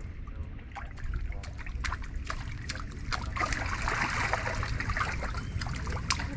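Water trickling and splashing, with many short, irregular spatters.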